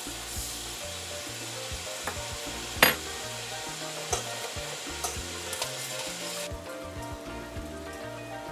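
Baby octopus sizzling in olive oil in a pan, with a sharp knock about three seconds in and a few lighter clicks after it. The sizzle drops off suddenly about two-thirds of the way through.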